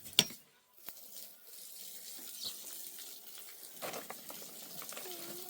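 Water running or pouring in a steady hiss, with a single sharp knock just after the start.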